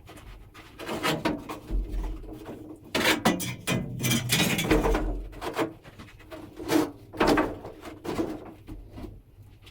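Large wooden barrel being worked over onto tyres: irregular wooden knocks and scraping, with a cluster of louder knocks in the middle and two more a little later.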